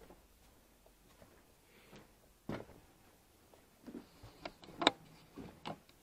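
Irregular footsteps and knocks of a person in boots making his way through a basement and stepping over wooden boards. There is a single knock a couple of seconds in, then a cluster of knocks with the loudest about five seconds in.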